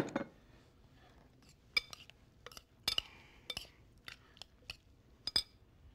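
A metal spoon clinking and tapping against a glass mixing bowl while chopped vegetables are stirred: a dozen or so light, irregular clinks.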